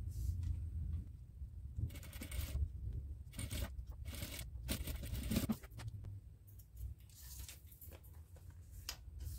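Clear plastic sheet crinkling and rustling as it is handled and slid across a table, in several bursts between about two and five and a half seconds in, over a low steady hum.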